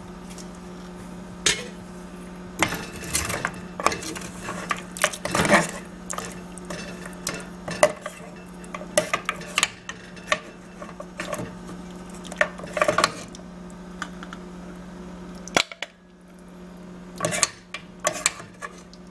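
A metal ladle scraping and clinking against the inside of a metal pressure-cooker pot as paya soup is stirred and ladled out, in irregular clinks and scrapes over a steady low hum.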